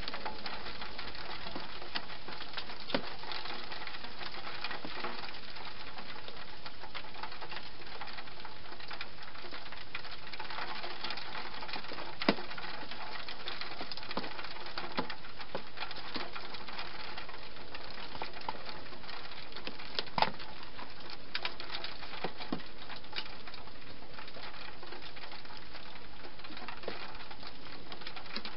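Wild hedgehog feeding inside a plastic feeding box: irregular small clicks and crunches over a steady hiss, with a few sharper clicks, the loudest about twelve and twenty seconds in.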